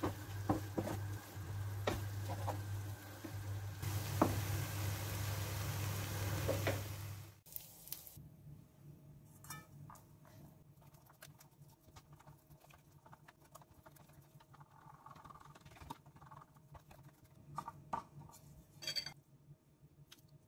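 A minced beef, egg and spring onion filling sizzling in a non-stick frying pan while a wooden spatula stirs and scrapes it, with clicks of the spatula over a steady low hum. About seven seconds in this cuts off, leaving only the soft pats, rubs and ticks of hands pressing oiled dough out thin on a pan, with a few sharper taps near the end.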